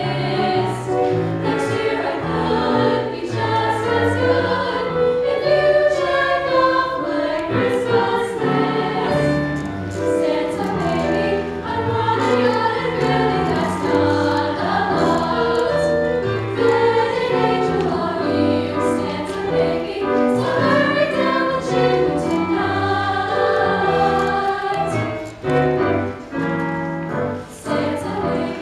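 A choir singing in several parts, with held chords that change about once a second.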